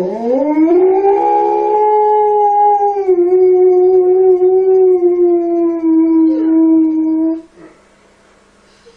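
A husky-type dog howling: one long howl that rises in pitch over the first second, then holds steady for about six more seconds before stopping.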